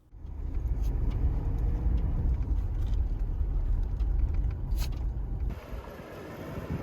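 A road vehicle driving, with a heavy, steady low rumble of engine and road noise. About five and a half seconds in it gives way abruptly to a quieter, different vehicle sound.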